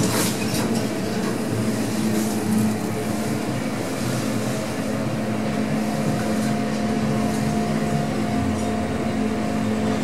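Passenger lift car travelling upward between floors: the steady running hum of the lift drive and car, with a low steady tone and a fainter higher one, after a brief click at the start.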